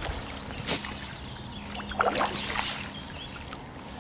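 Mirror carp splashing at the surface as it is drawn over a landing net, in short bursts of water splashing about a second in and again around the middle.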